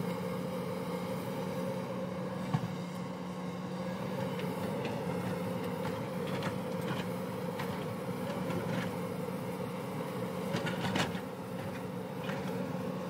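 Hyundai crawler excavator's diesel engine running steadily with a constant hum, while its bucket scrapes and knocks against rocky soil. A sharp knock comes about two and a half seconds in, and a cluster of scrapes and clatters near the end.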